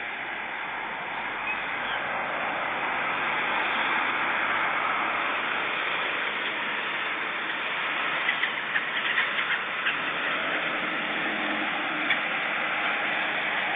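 Gulls calling: a cluster of short sharp calls about eight to ten seconds in and one more near twelve seconds, over a steady rushing background noise.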